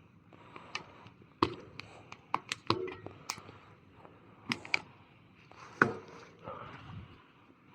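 Plastic tyre levers clicking and knocking against a bicycle wheel rim while prying the tyre off the bead: a scattered run of sharp clicks, the loudest about six seconds in.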